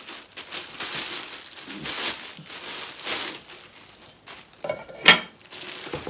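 Clear plastic wrapping crinkling and rustling as cookware pieces are pulled out of their bags, with one sharp snap or knock about five seconds in, the loudest sound.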